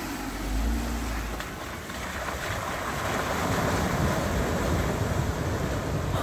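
A Jeep Wrangler Rubicon driving away through muddy puddles, its tyres splashing through the water, with wind rumbling on the microphone.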